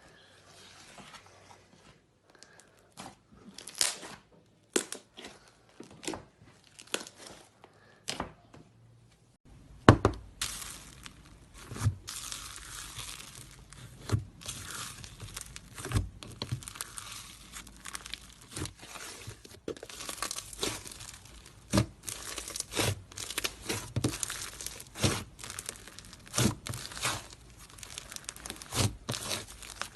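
Slime being squeezed and pulled apart by hand, giving a crackly, sticky, tearing sound with many sharp clicks. It is sparse and quiet at first and becomes denser and louder about a third of the way in.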